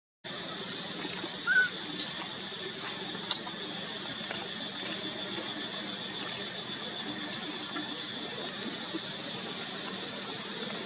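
Steady outdoor background noise with a constant high hum, and one brief high squeak about a second and a half in from a macaque in the troop.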